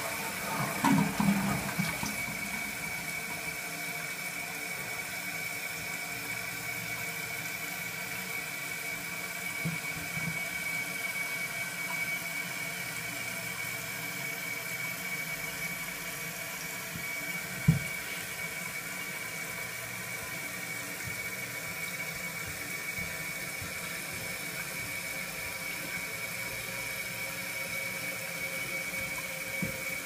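Toilet tank refilling after a flush: the fill valve runs with a steady hiss and a thin, steady high tone as water pours into the tank. There is some louder splashing and gurgling about a second in, and a single sharp knock about halfway through.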